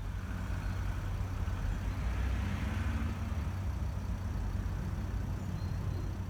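Motor vehicle traffic: a steady low engine hum, with a swell of road noise around the middle as a vehicle passes.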